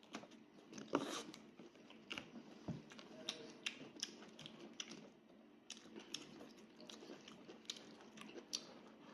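A person chewing and biting into a cooked sheep's head, with irregular short clicks and smacks a few times a second, the loudest about a second in.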